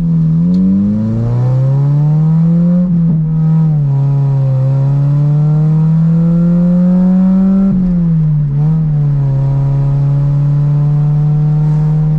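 Toyota MR2's engine accelerating. Its pitch climbs, drops at a gear change about three seconds in and again near eight seconds, then holds steady.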